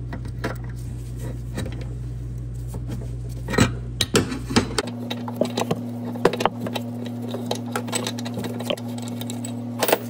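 Ratchet clicking and clinks of a metal O2 sensor socket as the downstream oxygen sensor is unscrewed from an old catalytic converter, over a steady low hum.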